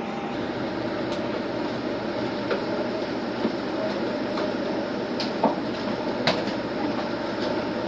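Diesel railcar running along the track: a steady rumble of running noise with scattered sharp clicks and knocks.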